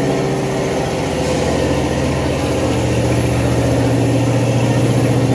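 An engine idling steadily, a low, even running with a fast pulse, growing slightly louder toward the end.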